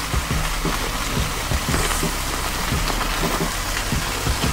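Porterhouse steak fat sizzling and crackling in a flare-up over hot coals: a steady hiss dotted with many small pops.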